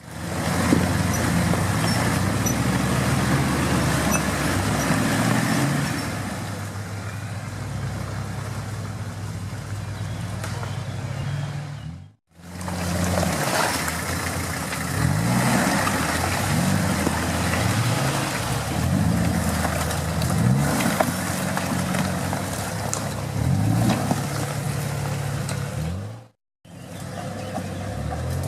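Toyota Land Cruiser engine working off-road, revved up and down again and again so its pitch rises and falls. The sound cuts out suddenly twice.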